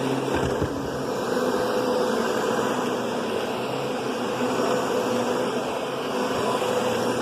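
Kenmore Progressive canister vacuum running steadily, a soft-toned, even rush of motor and airflow rather than a high whine.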